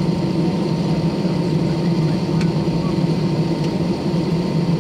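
Steady low hum inside the cabin of an Airbus A320 on the ground, with a faint steady whine running through it.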